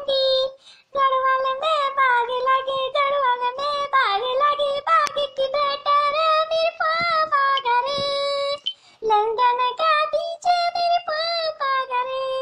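Background song: a high-pitched, child-like voice singing a melody in held notes, with short breaks about half a second in and near nine seconds.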